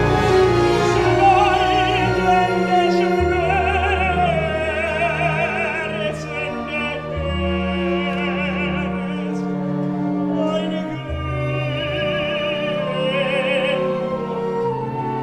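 Operatic tenor singing in German with a wide vibrato, held notes rising and falling, over a symphony orchestra sustaining long low notes.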